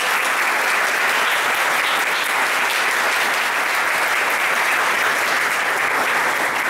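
Audience applauding: many people clapping in a steady, dense round of applause.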